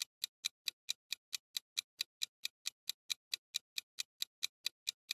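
Quiz countdown timer sound effect: quick, even clock-like ticking, about four and a half ticks a second, while the answer time runs out.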